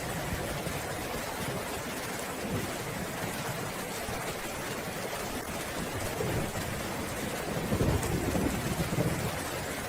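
Steady rain with a low rumble of thunder that swells in the second half and fades near the end.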